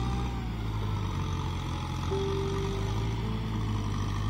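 Kubota tractor's diesel engine running steadily under load as it pushes a front blade of mud through a flooded rice paddy.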